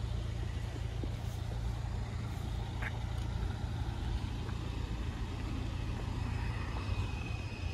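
Steady low rumble of road vehicles idling, with no single event standing out.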